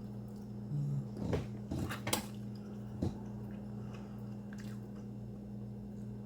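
Close-up biting and chewing of a chicken quesadilla, with a cluster of crackly bites between about one and two seconds in and a couple of single clicks later, over a steady low hum.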